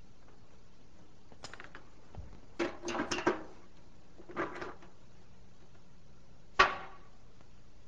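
Pliers twisting the screw cap of a thin metal can tight to seal it: a few short metallic scrapes and clicks, a cluster about three seconds in, and one sharp click, the loudest, near the end.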